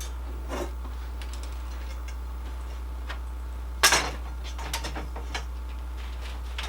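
Clicks and knocks of gear being handled, the loudest knock about four seconds in followed by a few lighter ticks, over a steady low hum.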